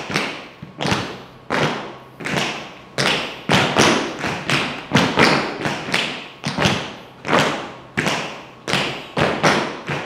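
Tap shoes striking the floor in a steady rhythm, about two taps a second with some in quick pairs, as tap dancers step a forward-forward, back-back phrase.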